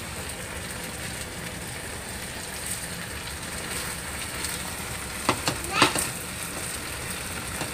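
Chicken wings and potato pieces sizzling steadily in hot oil in a frying pan, with a couple of sharp knocks a little past five seconds in.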